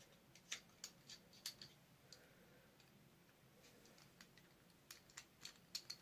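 Faint, scattered small clicks and taps of hand tools and a small metal connector clamp being handled: a few in the first two seconds, then a quicker run of them near the end.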